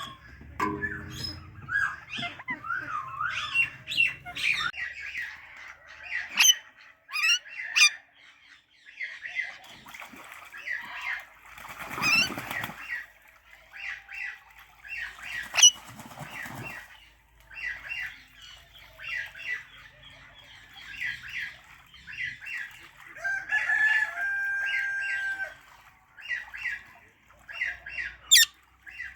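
Parrots chirping: runs of short, quick calls repeated many times, broken by a few fast rising whistles. There is a brief rustling burst about twelve seconds in.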